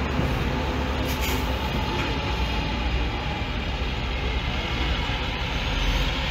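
Diesel semi trucks running at low speed as tractor-trailer haulers roll past close by. Their deep engine rumble grows stronger near the end, and there is a brief hiss about a second in.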